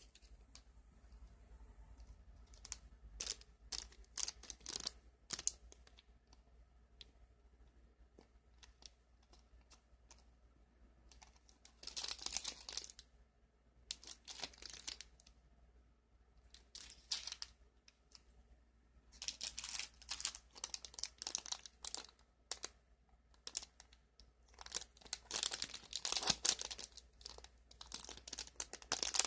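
Packaging being torn open and crinkled by hand in short bursts of a second or two, with quieter handling between them.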